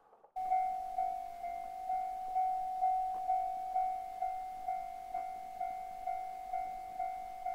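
Japanese electronic railroad crossing warning bell ringing: a single fixed chime tone struck about twice a second, each strike fading before the next. It starts about half a second in.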